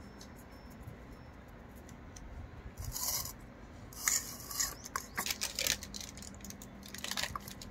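Kitchen handling noise while spices are added to a bowl of chicken: brief rustling and scraping sounds with small clicks, coming in several short bursts after a quiet opening couple of seconds.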